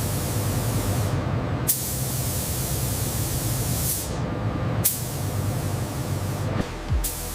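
A loud hissing jet over a steady low rumble, the hiss starting afresh sharply three times, about every three seconds.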